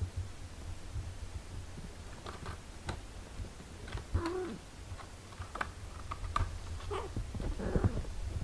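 Eight-day-old kittens nursing: soft clicking suckling noises, with a short squeaky kitten mew about four seconds in and another near the end, over a low steady rumble.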